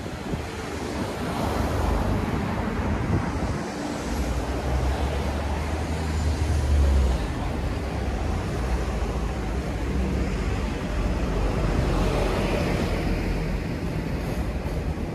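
Steady outdoor rushing noise with an uneven low rumble, of the wind-and-traffic kind.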